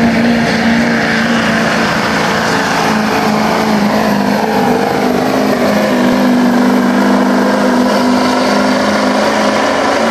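Diesel pickup truck engine held at high revs under full load, pulling a truck-pull sled; a loud, steady note that holds nearly level, with small dips in pitch partway through.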